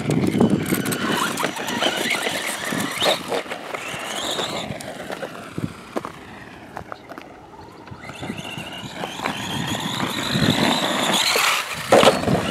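Brushless motor and drivetrain of a Traxxas Stampede 4x4 RC truck with a 2200 kV Castle 8th-scale motor whining, the pitch rising and falling with the throttle as it drives across loose dirt, tyres crunching on gravel. A louder burst near the end as the truck rears up onto its back wheels.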